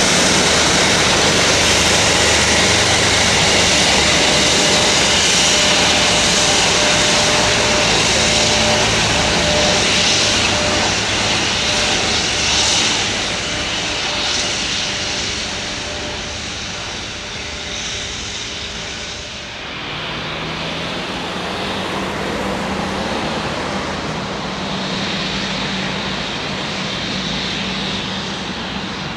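Airbus A350-900's Rolls-Royce Trent XWB turbofans running at taxi power as the airliner rolls past, a steady jet whine over a rumble. About two-thirds of the way through it cuts abruptly to the quieter engines of a taxiing Embraer E190, with a steady low hum.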